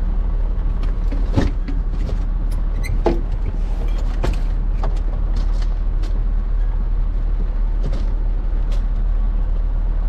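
A steady low hum under scattered knocks and clicks of a folding wheelchair and car being handled during a transfer.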